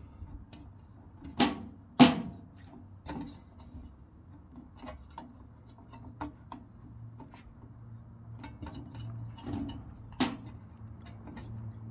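Scattered metallic clicks and knocks as a screw is forced with a hand screwdriver into the sheet-metal tool cabinet, a screw that won't start by hand and isn't self-tapping. The loudest knocks come about two seconds in and again near the end, with a faint low hum underneath.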